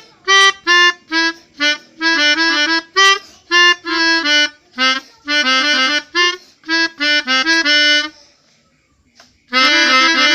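Telolet horn sounding a quick tune of short reedy notes that step up and down in pitch. It stops about eight seconds in and starts another run about a second later.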